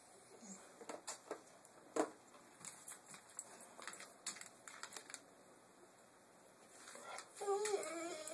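A dog's toenails clicking and tapping on a parquet floor as it shifts its feet, then a wavering dog whine near the end, begging for a treat.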